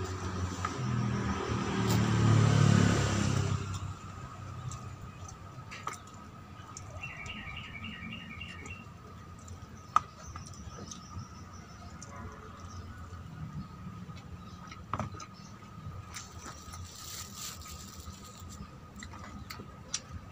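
A motor vehicle passing, swelling to its loudest about two to three seconds in and fading by about four seconds. After that, quieter background with a steady faint high whine, a short run of bird-like chirps about seven seconds in, and a few sharp clicks.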